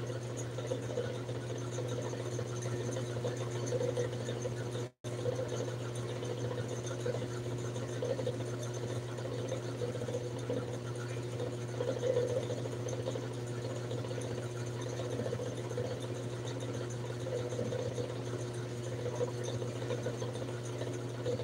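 Steady low mechanical hum, with the sound cutting out for a moment about five seconds in.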